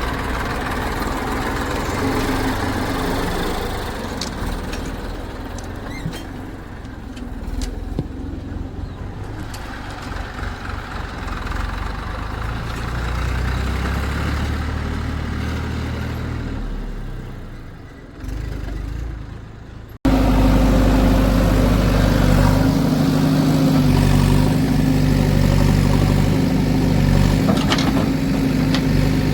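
Diesel machinery running, a backhoe loader and tractors at work: engine noise that rises and falls for most of the stretch. Then, after an abrupt cut about two-thirds of the way in, a louder, steady engine runs close by.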